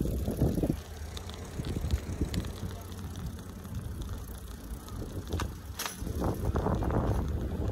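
Old mountain bike rolling along pavement: a steady low rumble of tyres and wind on the microphone, with two sharp clicks or rattles from the bike about two-thirds of the way in.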